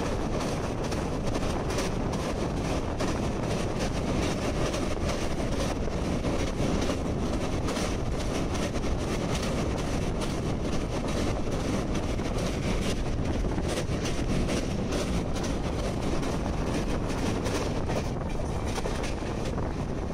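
A moving train heard from an open window: a steady rumble of wheels on the track.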